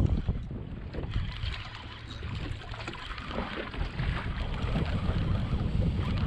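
Wind buffeting the microphone in uneven gusts, with water lapping at a small boat's hull.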